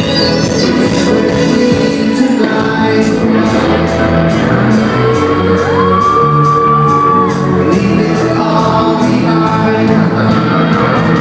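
Live synth-rock band playing loudly in a hall: sustained synthesizer chords over a steady quick drum beat, with a singer holding a long note midway.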